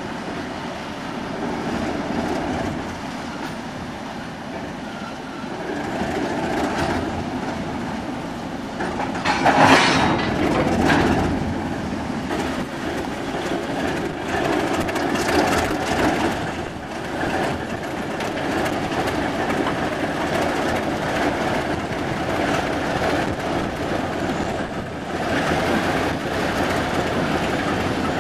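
TEM2 diesel shunting locomotive with its engine running as it moves slowly along the track, its wheels rumbling on the rails. A louder, harsher burst of noise comes about ten seconds in.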